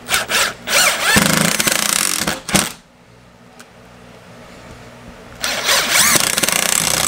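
Cordless impact driver hammering pan-head screws through a plastic electrical box: a couple of short blips, then a long run of rapid hammering as the first screw drives home. After a pause of a few seconds, a second run drives in another screw.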